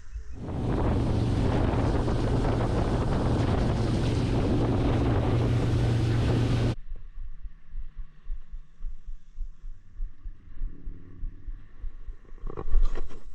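A boat's outboard motor running steadily with a low hum, with wind rushing over the microphone. It starts about half a second in and cuts off suddenly after about six seconds, leaving a quiet stretch with a brief clatter near the end.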